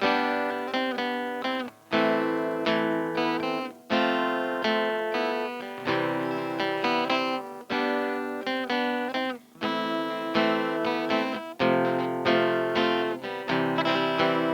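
Guitar playing the Am–F–C–G chord progression, with a short break at each chord change about every two seconds.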